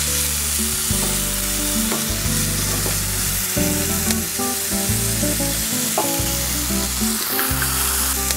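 Cauliflower sizzling steadily in a frying pan on the stove, with a few sharp taps as eggs are cracked against the rim of a bowl.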